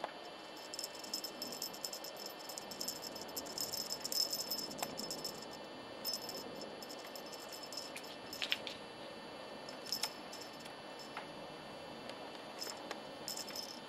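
Cat wand toy with beads and feathers rattling and clicking in quick, irregular clusters as kittens bat and bite at it, busiest in the first few seconds.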